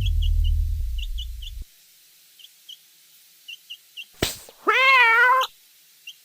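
Cartoon sound effects: a low rumble that stops about a second and a half in, faint high chick peeps scattered throughout, a sharp click about four seconds in, then a cartoon cat meowing once with a wavering pitch for under a second.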